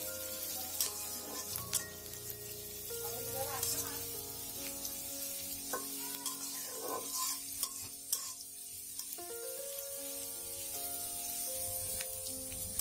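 Sliced onion and garlic sizzling in hot oil in a karahi, stirred with a metal spatula that scrapes and clicks against the pan every second or so.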